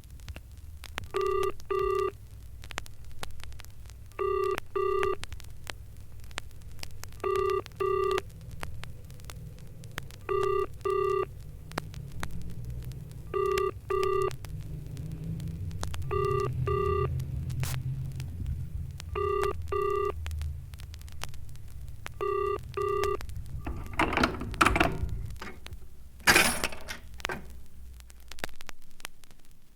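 Telephone ringing in the double-ring pattern: two short rings close together, repeated eight times about every three seconds over a low hum. Two loud clattering noises follow near the end.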